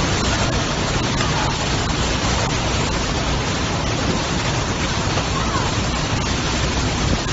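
Tropical storm wind and heavy rain: a loud, steady rushing noise of wind-driven rain pouring down.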